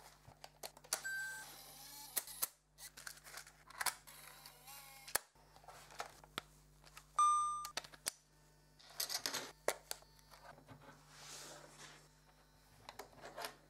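Canon MV530i MiniDV camcorder being handled: repeated clicks and snaps of its buttons and panels, two short wavering motor whirs, and a single short electronic beep about seven seconds in.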